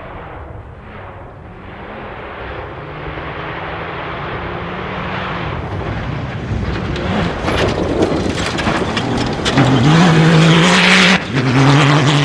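A cross-country rally vehicle approaching at speed, its engine and gravel-tyre noise growing steadily louder. The engine note breaks off briefly about eleven seconds in, then carries on.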